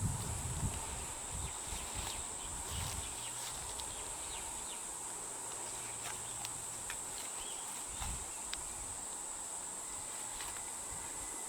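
Insects chirring outdoors as a steady high-pitched drone, with scattered faint clicks and a few low rumbles.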